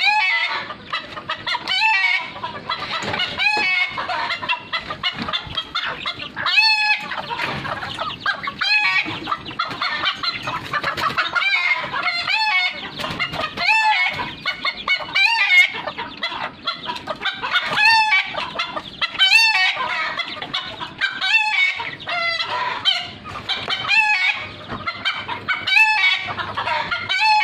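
A flock of bantam chickens clucking steadily, with a short, loud call breaking out every one and a half to two seconds.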